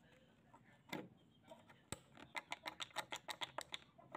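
Small metal clicks as pliers work at a pair of rusted steel scissors: two separate clicks, then a quick run of light ticks at about eight a second for a second and a half.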